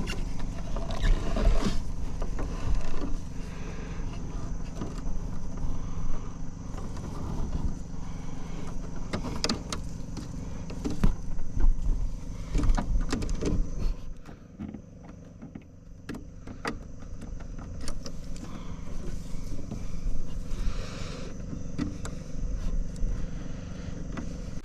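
An engine running steadily, with scattered clicks and knocks over it and a quieter stretch a little past halfway.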